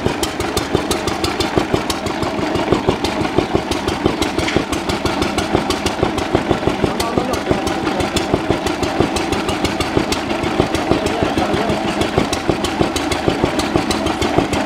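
Old stationary engine running steadily with a quick, even beat, belt-driving a sculpture of rotating washing-machine drums.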